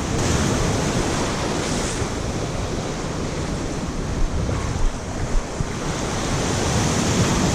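Ocean surf breaking and washing on the beach, with wind buffeting the microphone. A few short knocks come in the middle.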